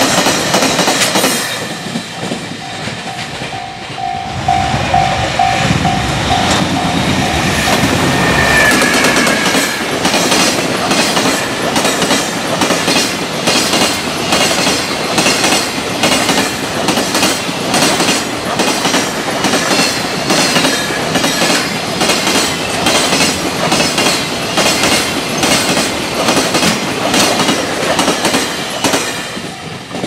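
Long freight train passing, its wagon wheels clacking over the rail joints in a steady, loud rhythm of about two clacks a second. A level-crossing bell rings in quick pulses for several seconds near the start, and a brief high squeal sounds about eight seconds in.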